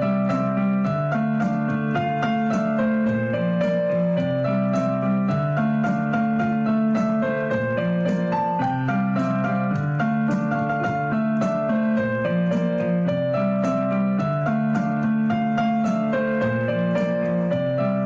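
Gentle background piano music, a steady run of sustained notes.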